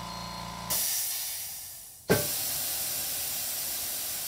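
Pneumatic air release of a GeoKnight MaxiAir 4464AP automatic heat press as its timer runs out and the bottom platen lowers to release pressure. A steady hum cuts off under a sudden burst of hissing air, which fades away. About two seconds in a second loud burst starts, and it settles into a steady hiss.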